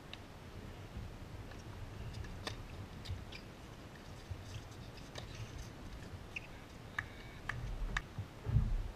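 Faint, scattered taps of tennis balls on a hard court, a few in quick succession near the end as the server bounces the ball before serving, followed by a brief low rumble.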